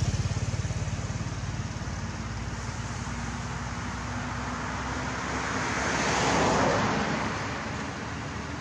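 Motor vehicle engine running, with a low pulsing at first and a swell about six to seven seconds in as traffic passes.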